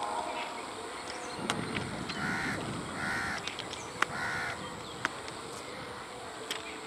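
A crow cawing three times, about a second apart. A train horn cuts off at the very start, and a few sharp clicks sound in between.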